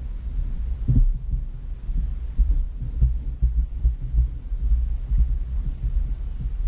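Irregular low thumps over a steady rumble: handling noise and knocks picked up by the microphone as trading cards are sorted and counted on the table.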